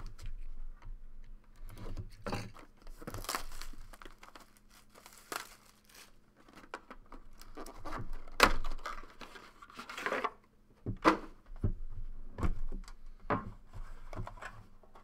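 Plastic shrink-wrap crinkling and tearing as a sealed cardboard trading-card box is unwrapped, then cardboard sliding and scraping as the box is handled and opened, with a few sharper knocks partway through.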